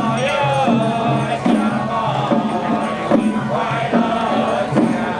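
Traditional temple procession music: a wavering melody over a steady low beat about twice a second.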